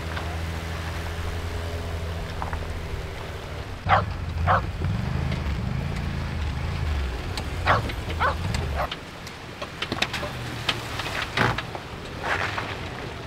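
A dog barking a few short times over a low, steady motor hum. The hum wavers in pitch partway through and stops about nine seconds in.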